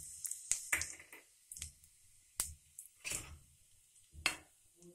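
Cumin seeds and asafoetida crackling in hot ghee in a kadhai, the tempering (tadka) stage: irregular sharp pops over a faint sizzle.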